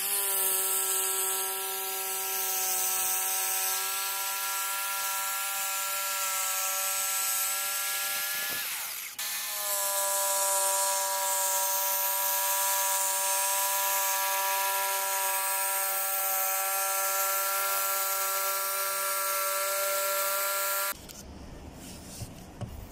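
Electric power saw cutting a wooden board for a chair seat: a steady motor whine over a bright hiss. It runs for about nine seconds, stops for a moment, then runs again for about twelve seconds and cuts off.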